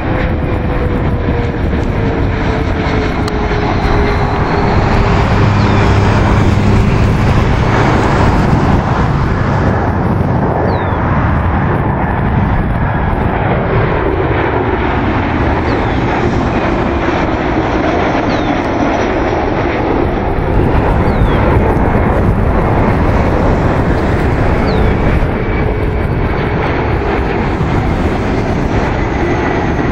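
Turbofan jet airliners, regional jets and a Boeing 737, passing low overhead on landing approach. Their engines make a steady loud roar with a whine that slowly falls in pitch as each aircraft goes by.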